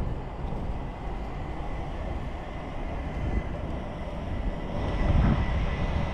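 Steady low outdoor rumble, swelling louder in gusts near the end.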